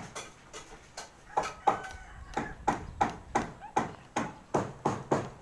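Hammer blows on a corrugated metal roofing sheet, a steady run of about three sharp, slightly ringing strikes a second, starting about a second and a half in.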